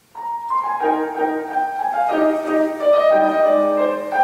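Instrumental background music, a melody of held notes, starting a moment in.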